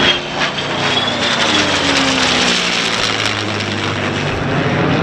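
An F-16C fighter jet and a P-51D Mustang flying past together overhead: a loud jet roar with a high whine, the pitch sliding down as they pass.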